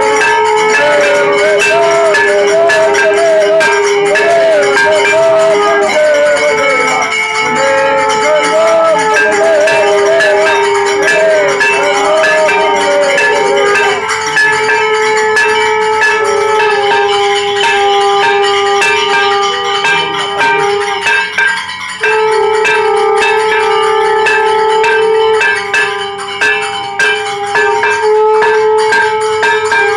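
Temple bells ringing continuously and rapidly during a Hindu aarti. From about halfway through, a conch shell (shankh) is blown in a long, steady, horn-like tone, breaking briefly a couple of times for breath.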